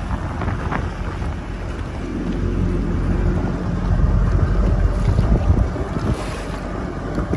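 Wind buffeting the microphone over the low running of a jet ski engine at slow speed, its tone strongest and loudest in the middle as it closes in. Choppy water slaps around the hulls.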